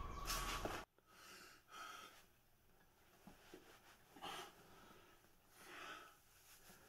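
Eerie music and whispering cut off suddenly about a second in. Then a man breathes heavily, a few loud gasping breaths spaced out over the following seconds.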